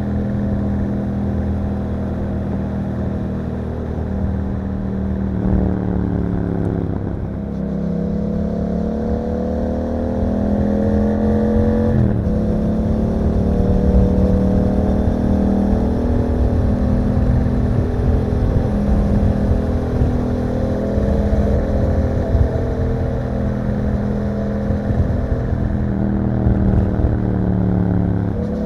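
Yamaha MT-07's parallel-twin engine through an Akrapovic exhaust under way. The revs dip about six seconds in, climb steadily for about four seconds, then drop sharply at an upshift and hold fairly steady while cruising.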